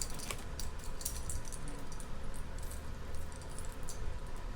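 Light, scattered clicks and jingles from a costume-jewelry bracelet and its loose pieces being handled, with the pieces tapping together.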